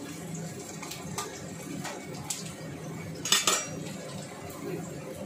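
Metal spatula scraping and clanking against a stainless steel wok during stir-frying: a few scattered strikes, the loudest a quick double clank a little past three seconds in.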